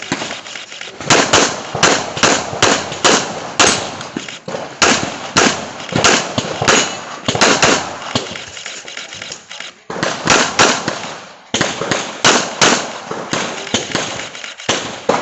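Handgun shots fired in rapid strings of several, about three a second, with short pauses between strings, in a practical shooting (IPSC) course of fire.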